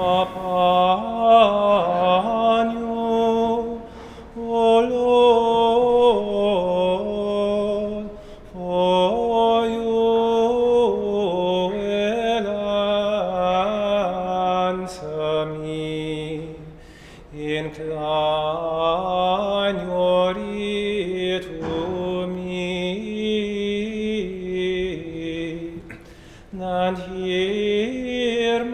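Chant sung as one melodic line on long held notes, in phrases broken by short breathing pauses.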